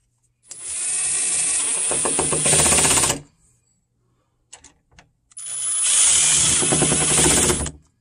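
A Milwaukee 18-volt cordless impact driver driving the latch's screws in two runs of about two and a half seconds each, with a short pause between them. The first run gets louder about two and a half seconds in.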